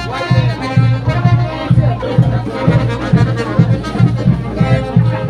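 Brass band music with trumpets and trombones over a steady bass beat.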